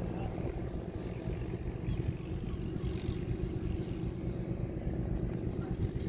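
Wind buffeting the microphone: an uneven low rumble, with a faint steady hum beneath it.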